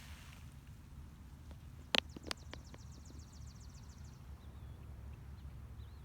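Faint outdoor ambience with a steady low rumble; about two seconds in come two sharp clicks, followed by a rapid high trill lasting about two seconds and a few faint short chirps.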